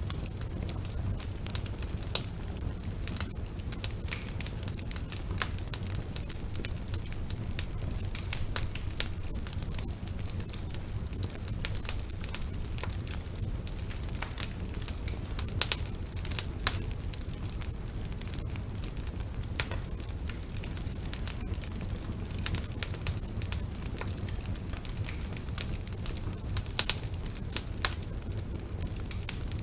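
Wood fire burning in a fireplace: a steady low rumble of the flames with frequent irregular crackles and sharp pops, a few louder snaps among them.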